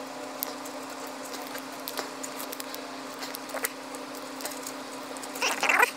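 3M 300LSE adhesive backing liner being peeled by hand off a thin plastic sensor film: faint crinkling and small sticky ticks, with a louder rustle near the end.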